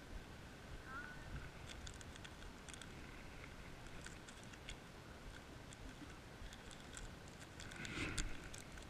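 Crinkling and crackling of a small plastic wrapper being picked at and torn open by hand to get at foam earplugs, in scattered small crackles, with a louder rustle about eight seconds in.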